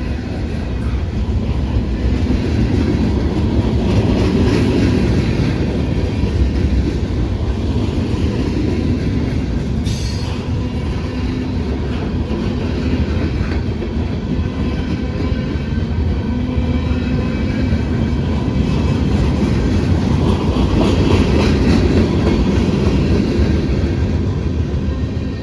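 Freight train rolling past: a steady rumble of wheels on rail that swells and eases, with one sharp click about ten seconds in.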